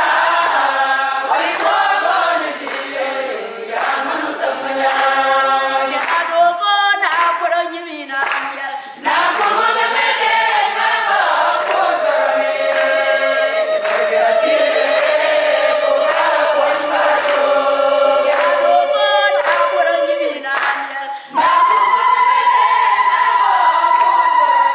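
A small group of women singing a church song in harmony, with hand claps in time. Long held notes follow in the second half, a higher one starting near the end.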